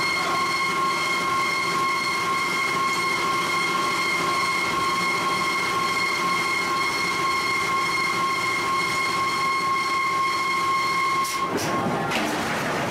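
Steady high-pitched machine whine from the forge shop's power hammer equipment, which stops about eleven seconds in. It gives way to the forging hammer striking the punch driven into a red-hot steel disc: a few sharp blows amid a rough hissing crackle of flying scale.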